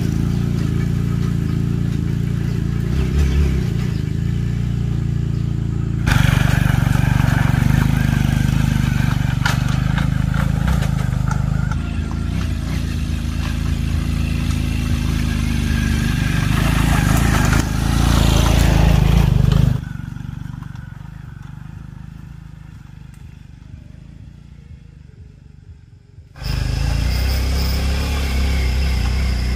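A small motorbike engine running steadily while riding, heard in several cut-together stretches. About two-thirds through, it drops away to much quieter. Near the end a steady high insect buzz takes over.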